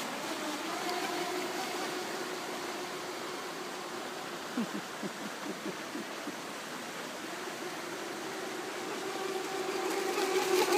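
Radio-controlled jet ski's 2600kv brushless electric motor running at speed across the water, a steady whine that fades in the middle and grows louder near the end as the craft comes close, over a hiss of water.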